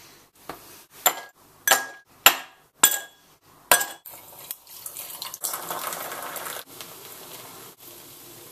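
Ice cubes dropped into a drinking glass, clinking about five times with a short ring each. Liquid is then poured in, followed by a steady fizzing hiss.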